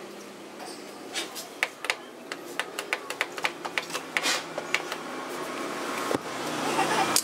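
Irregular clicks and taps of hands handling the plastic chassis and parts of an opened Polytron DVD compo system, with one heavier knock about six seconds in.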